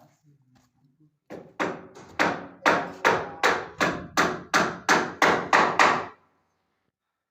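Hammer blows on timber, about a dozen in a steady run at roughly three a second, each ringing briefly. The first few are lighter, and they stop about six seconds in.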